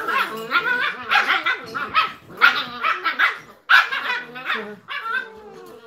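German Shepherd puppies barking and yapping in rough play, a rapid string of short high barks, a couple each second. It is the noise of puppy play-fighting, not real aggression: they're just playing.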